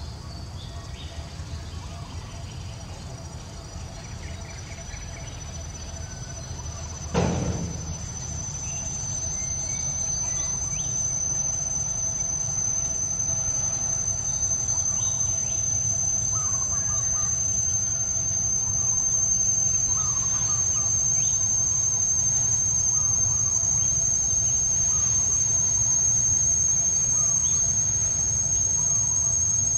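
A steady, high-pitched insect drone that swells in over the first several seconds and then holds, with scattered short chirps over it. A single thump about seven seconds in.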